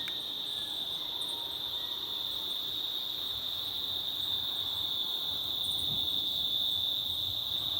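Cicadas, known locally as June bugs, droning in one steady high-pitched note without a break, with faint short chirps above it.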